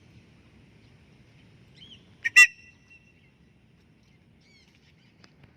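A parrot's single loud squawk, a short double call about two seconds in. Faint chirps of small birds come before and after it.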